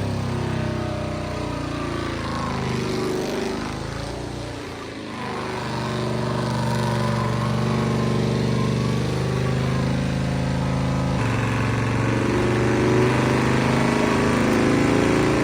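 A vehicle engine held at high, steady revs, dipping briefly about five seconds in, with an abrupt change in the sound about eleven seconds in.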